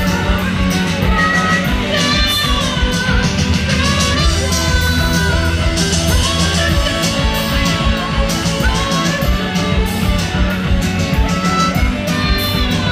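Live rock band playing loud over a festival PA: electric guitars, bass and drums with a steady beat, heard from the crowd.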